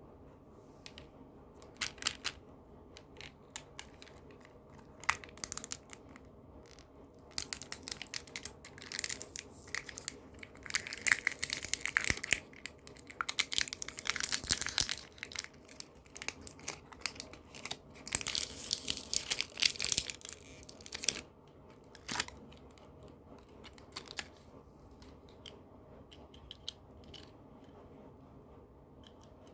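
Candy packaging being handled and torn open: irregular crinkling and tearing with sharp clicks, busiest in the middle stretch, then a few scattered crinkles near the end.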